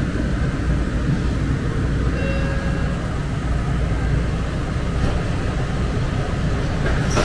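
Muni Metro light-rail train running, heard from inside the car as a steady low rumble.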